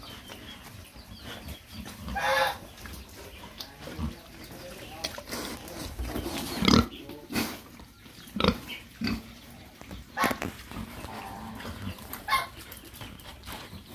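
Young pigs grunting and snuffling as they root and eat feed off the floor, in short irregular grunts. A brief higher-pitched call comes about two seconds in.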